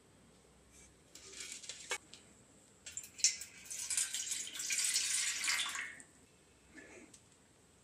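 Water poured into an empty stainless steel bowl, a splashing rush of about three seconds that starts about three seconds in and fades out.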